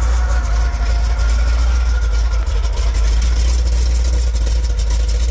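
Chevrolet K5 Blazer's 454 big-block V8 idling steadily.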